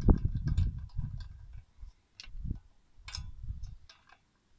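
Lug nut being turned by hand on a car wheel stud: scattered light metallic clicks and ticks. Irregular low rumbling underneath, loudest about half a second in.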